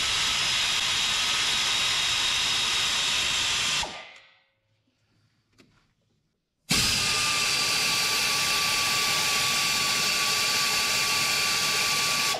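Pneumatic air ratchet running in two long bursts: a steady hiss of exhaust air with a high whine, stopping for about three seconds in between. It is spinning off the exhaust manifold nuts on a Nissan KA24E engine.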